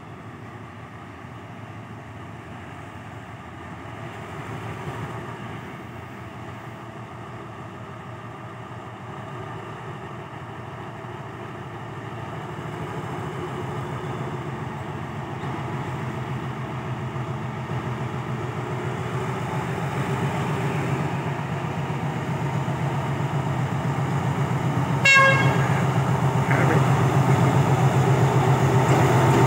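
Alsthom diesel-electric locomotive No. 4109 hauling a passenger train slowly closer, its engine rumble growing steadily louder. It gives one short horn toot near the end.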